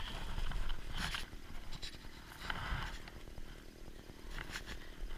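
Nylon fabric of an Eskimo pop-up ice-fishing shelter rustling and scraping in short bursts as it is handled, over a steady low rumble of wind on the microphone.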